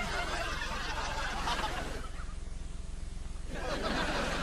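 Audience laughter, as from a sitcom laugh track: a swell that fades about two seconds in, then a second swell near the end, over a steady low soundtrack hum.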